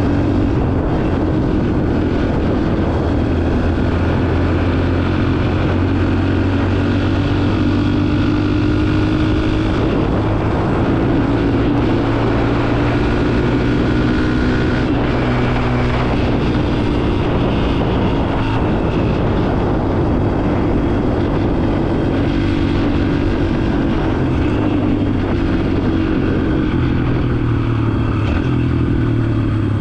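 Yamaha TT-R125's single-cylinder four-stroke engine running steadily while riding, its revs rising and falling several times with the throttle.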